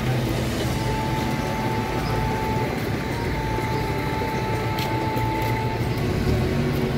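Street noise: a steady low rumble of motor vehicles running. A faint, high, steady tone sounds from about a second in until about six seconds.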